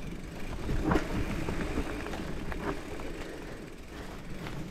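Mountain bike rolling over a rough forest trail: a steady rumble of tyres on dirt and roots with rattles from the bike, and a sharp knock about a second in.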